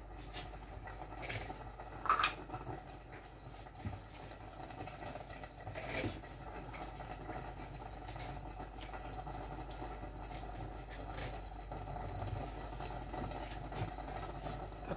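Covered pot of cassava leaf sauce simmering on an electric hob, a low steady bubbling with a few short louder pops, about two seconds and six seconds in.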